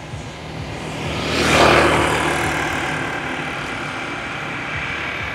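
A motor vehicle passing by: its noise swells to a peak about a second and a half in, then fades slowly, over a steady low engine hum.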